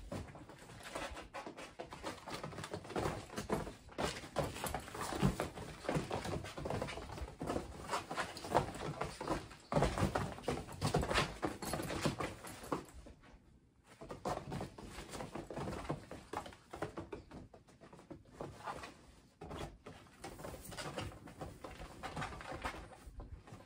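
Several kittens scampering, hopping and pouncing on the padded fabric floor of a pop-up playpen: an irregular patter of soft thumps, scuffs and fabric rustles, with a brief lull just past halfway.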